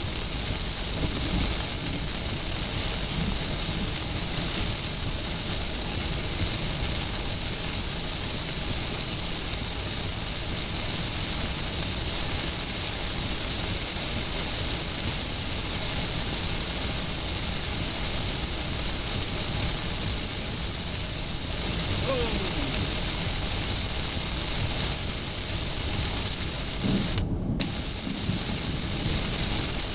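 Heavy rain pelting a moving car's windshield and roof, heard from inside the cabin as a steady hiss over the low road and engine noise. The hiss cuts out for a moment near the end.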